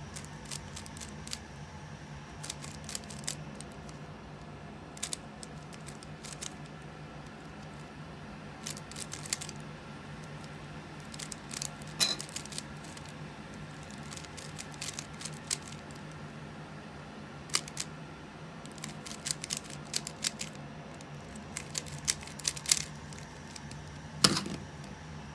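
Plastic Rubik's cube being turned by hand: irregular runs of quick clicking as the layers are twisted, with short pauses between runs, over a steady low hum.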